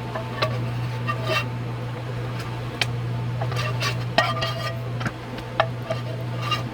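Metal cooking utensils clinking and scraping against a pot while tteokbokki cooks: scattered clinks with a short metallic ring, heaviest about four seconds in, over a steady low hum.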